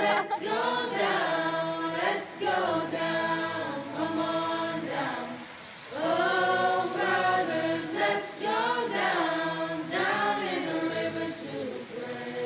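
Choir-like singing in phrases of held, gliding notes, with short breaks between phrases.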